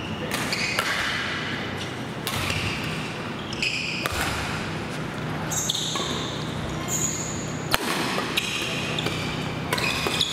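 Badminton rally: rackets striking the shuttlecock in quick, irregular cracks, with players' shoes squeaking briefly on the court floor again and again.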